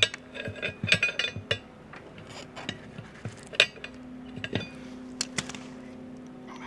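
Metal hand tools clinking and tapping together as they are handled: a quick run of clinks, then scattered single clinks.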